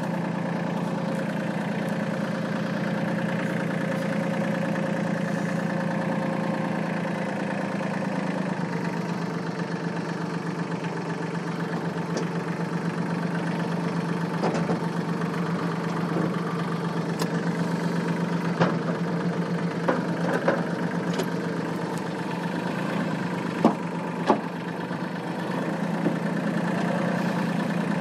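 Mahindra 1526 compact tractor's diesel engine running steadily while the tractor is driven, with a few sharp knocks in the second half.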